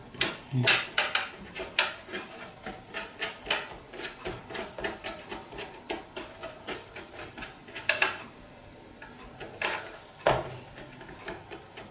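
Hands rolling and pressing a log of dough on a wooden cutting board: a run of light knocks and clicks, several a second, with a short pause about eight seconds in and a sharper knock soon after.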